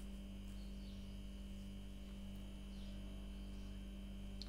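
Steady low electrical mains hum and little else, with one short high tick near the end.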